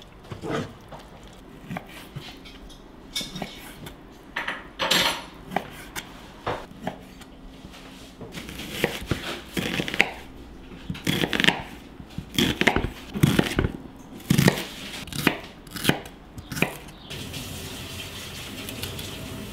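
Chef's knife chopping onion and celery on a wooden cutting board: a string of separate, uneven knocks, with a steady hiss coming in near the end.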